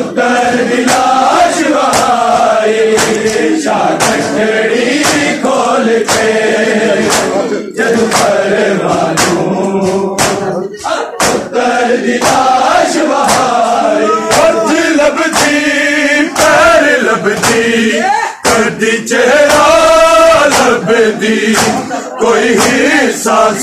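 A crowd of male mourners chanting a Punjabi noha in chorus. A steady beat of hands slapping bare chests in matam keeps time under the singing.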